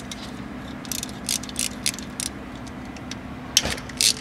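Ratchet clicking in short runs as the 10 mm bolts holding a crankshaft position sensor are backed out, one run about a second in and another near the end.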